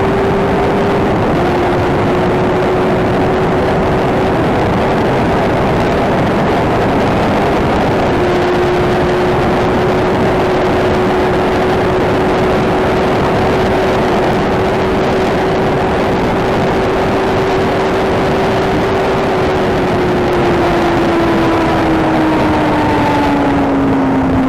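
Inline-four sport motorcycle engine held at steady high revs during a top-speed run, under a loud rush of wind noise. Its pitch dips slightly twice, then falls steadily over the last five seconds as the bike slows.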